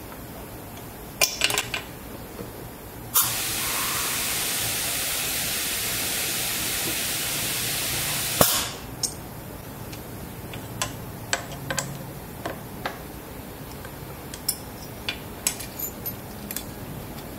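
Drill press boring a screw hole into a Jaguar XK aluminium cylinder head: a steady hiss of the bit cutting for about five seconds, starting and stopping abruptly. Before and after it come light clicks and clinks of metal parts being handled.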